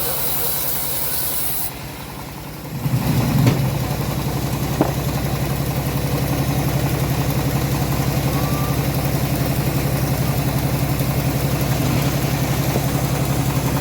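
Engine of a homemade bandsaw running steadily with a pulsing beat. The high hiss of the blade cutting wood stops about two seconds in, and a second or so later the engine gets louder and settles into an even run.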